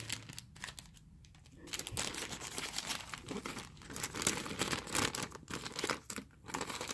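Crinkly packaging being handled and pulled open by hand, quieter at first, then a dense crackling rustle from about two seconds in.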